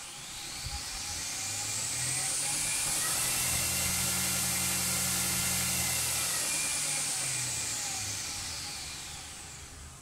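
Variable-speed belt grinder running with no work on the belt: motor and belt speed up over the first few seconds, hold at top speed, then wind back down near the end. A whine rises and falls in pitch with the speed.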